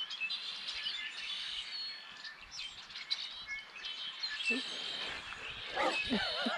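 Several wild birds chirping and singing: many short, high calls overlapping. Near the end a person's voice breaks in, louder than the birdsong.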